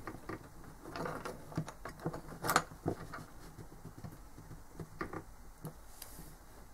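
Scattered small clicks and taps of an opened smartwatch and its rubber strap being handled on a wooden table while its battery wire is unsoldered, the sharpest tap about two and a half seconds in.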